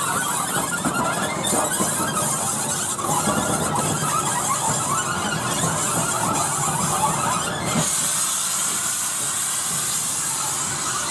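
LMS Black Five 4-6-0 steam locomotive No. 44871 moving off slowly on curved track, its wheel flanges squealing against the rails. From a little after halfway, a hiss of steam from the open cylinder drain cocks grows stronger.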